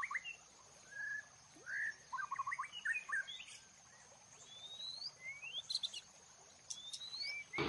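Birds chirping on and off: clusters of short chirps, then a few quick rising whistles.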